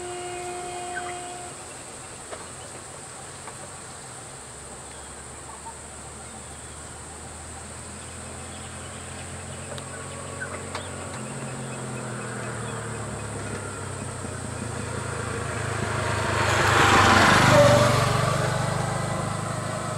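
A motor vehicle's engine grows louder over several seconds and passes close by, loudest a couple of seconds before the end, then fades. Under it runs a steady high-pitched insect drone.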